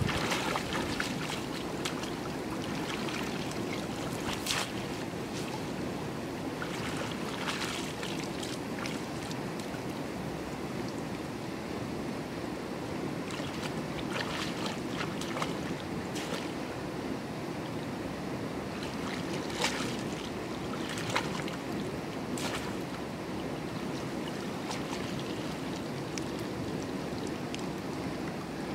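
Steady wind and water noise, broken by a scattering of short splashes and rustles from wading and working baskets in shallow water.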